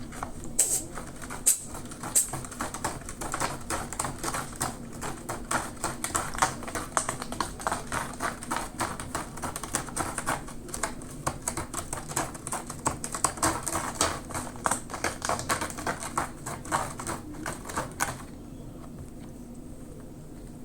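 A ginger Munchkin cat clawing at a scratcher: a fast, dense run of dry scratching strokes that stops abruptly about eighteen seconds in.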